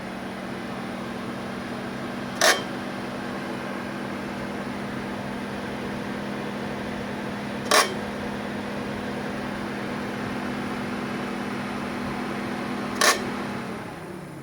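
Nissan Leaf (second generation) heat pump running with a steady droning hum, the grinding noise heard after the car is started with heating or AC on, broken by three sharp clicks about five seconds apart. The hum dies away near the end.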